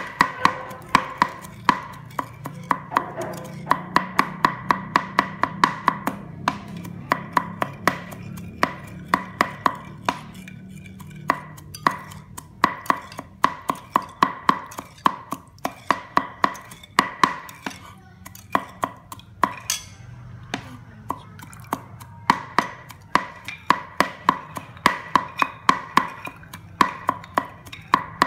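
A knife chopping on a cutting board in fast runs of even strokes, about five a second, with short pauses between runs.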